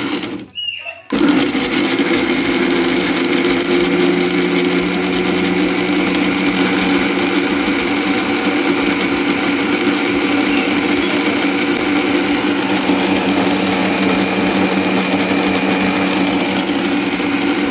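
Bajaj mixer grinder grinding green chutney (coriander, tomato, green chilies and a little water) in its steel jar. It starts with a couple of short pulses, then runs steadily from about a second in.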